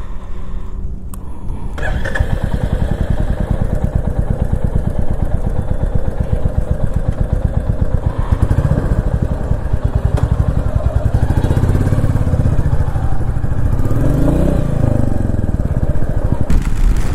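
Motorcycle engine running on the move, louder from about two seconds in, with a rise and fall in pitch near the end as it revs through a gear.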